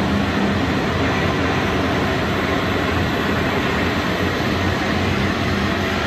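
Steady, even rush of waterfall sound played over loudspeakers in a media-art installation, with a faint low hum underneath.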